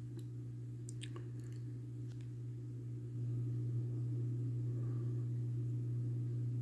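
Litex Crown 42-inch ceiling fan running with a steady electrical motor hum, with a few faint ticks early on. The hum steps up louder about three seconds in.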